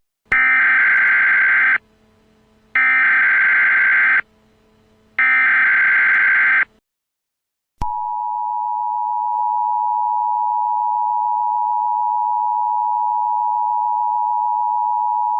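Emergency Alert System alert: three bursts of SAME header data tones, each about a second and a half long and about a second apart. About eight seconds in, after a short gap, the steady two-tone EAS attention signal starts and holds.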